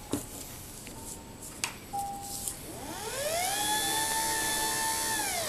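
A few clicks of wiring being connected, then a car windshield wiper motor run through a cheap PWM speed-controller board starts up. Its whine rises in pitch about three seconds in, holds steady, and drops again near the end.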